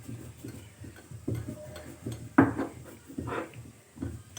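Sil-batta stone grinder: the stone roller is pushed and rolled over almonds on the flat grinding slab, gritty stone-on-stone scraping strokes about once a second over a low rumble.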